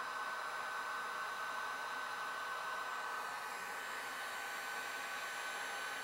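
Handheld heat gun running steadily, blowing hot air: an even rush of air with a steady high whine from its fan.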